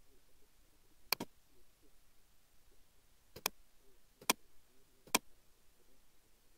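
Computer mouse button clicking four times, short sharp clicks: the first two about two seconds apart, the last three under a second apart.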